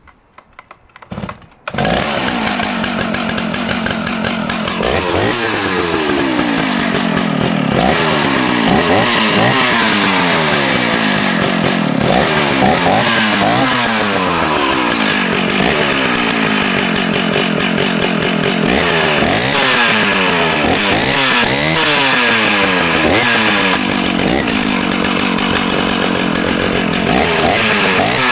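Vintage Stihl 056 AV two-stroke chainsaw started on choke: a few short sounds, then the engine catches about two seconds in and runs loudly, revved up and down over and over with a few steadier stretches.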